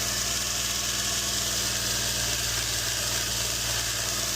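Belt grinder running steadily with a constant motor hum and belt hiss while a pocketknife blade is satin-polished on the abrasive belt.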